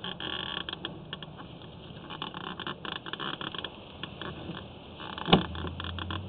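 Irregular scraping and clicking as a sewer inspection camera's push cable is fed through a root-choked line, with one sharp knock about five seconds in.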